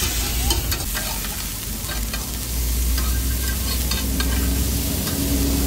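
Pork belly (samgyeopsal) sizzling as it grills, with light clicks and scrapes from a cooking utensil. A low steady hum joins about halfway through.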